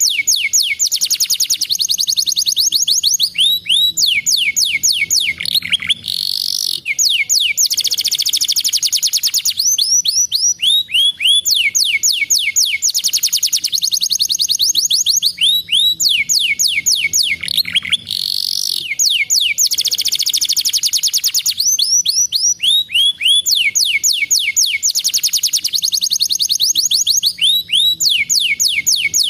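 Domestic canary singing: fast trills of quick downward-sweeping notes, with a rising whistled note about every six seconds, the same phrase sequence coming round again and again.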